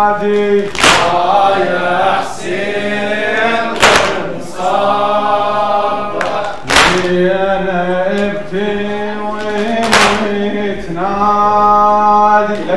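Men's voices singing a Muharram mourning chant (latmiyya), with sustained sung notes, against loud unison slaps of chest-beating (matam) about every one and a half seconds, every other slap louder.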